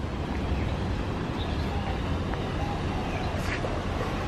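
Steady outdoor background noise with a low rumble and a few faint ticks.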